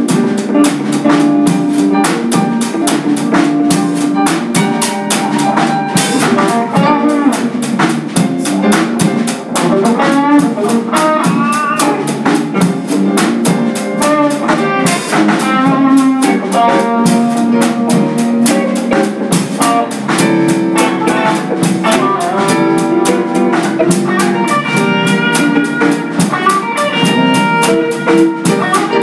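A small live band playing a funk tune: two electric guitars and an electric bass over a Mapex drum kit keeping a busy, steady groove.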